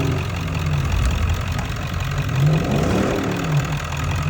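Truck engines running in a snow recovery pull: a steady low engine drone, with one engine revving up and falling back between about two and three and a half seconds in, as a truck tries to yank a stuck truck free with a recovery rope.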